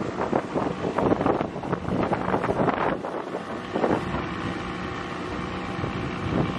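Wind buffeting the microphone on a small boat running fast under an outboard motor, with the motor's steady drone coming through more clearly in the second half as the gusts ease.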